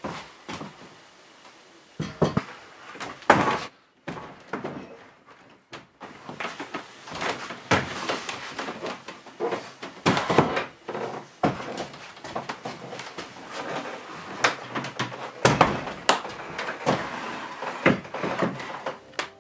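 An old wooden Japanese cabinet being handled and shifted: a long run of irregular wooden knocks, clunks and thuds, several of them loud, with short pauses between.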